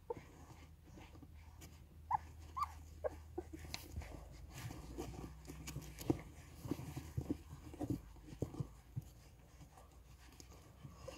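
Puppies nursing from their mother: a few short high squeaks about two seconds in, then a run of soft, irregular suckling clicks and smacks.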